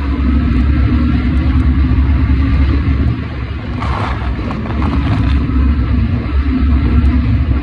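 Steady low rumble and hum of a road vehicle in motion, with a brief scratchy rustle about four seconds in.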